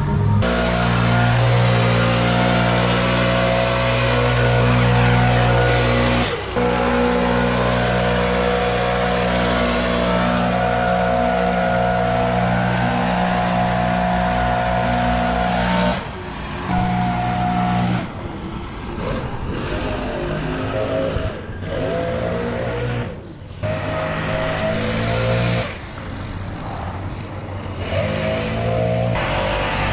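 Small gasoline engines of lawn-care equipment running at a steady speed. The sound cuts and shifts in pitch abruptly several times, especially in the second half.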